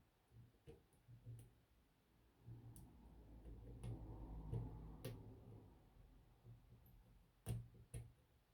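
Faint, irregular clicks and ticks of a lock pick and tension wrench working the pins of a Yale shutter padlock, with two sharper clicks near the end.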